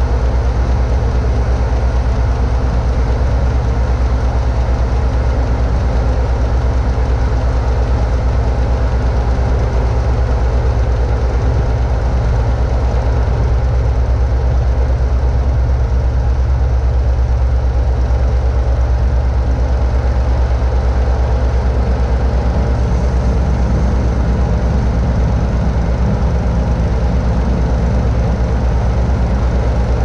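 Mobile crane's diesel engine running steadily at an even speed, a deep continuous drone with no change in pitch.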